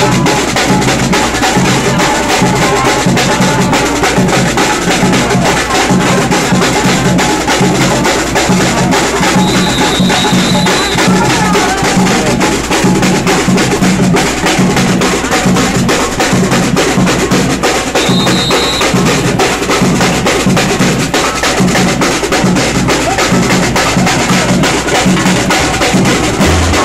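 Live samba street drumming: a group on strapped drums played with sticks keeps up a fast, dense beat with a deep pulsing bass. A short high whistle note sounds twice, about a third of the way in and again about two-thirds through.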